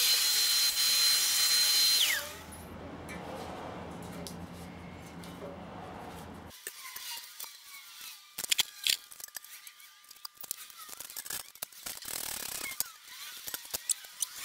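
Hand tools clicking and scraping against a steel motorcycle frame as blanking plugs are worked out of its powder-coated tubes. This follows a brief loud hiss with a steady high whistle that drops in pitch as it cuts off, then a few seconds of quieter hiss with a low hum.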